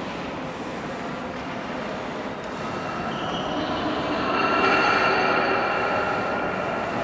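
Long sustained sung notes ringing in the very long echo of the Pisa Baptistery's dome, overlapping into a chord that swells about halfway through and holds, over a reverberant murmur of visitors.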